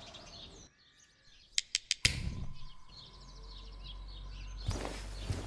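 Foley of birds chirping, which stops. After a short hush come three quick sharp clicks and then a louder sharp knock, followed by a steady low hum of room tone and a brief swishing rustle near the end.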